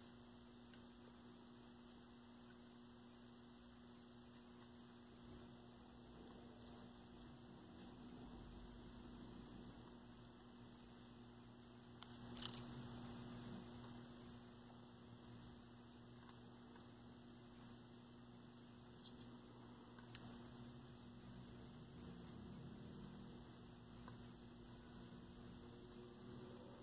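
Near silence with a steady low electrical hum, broken by two sharp clicks about twelve seconds in.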